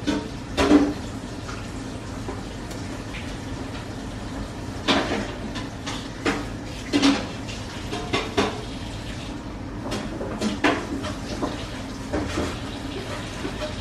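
A metal baking tin and dishes clattering while being washed up: about a dozen irregular knocks and clinks over a steady background hum.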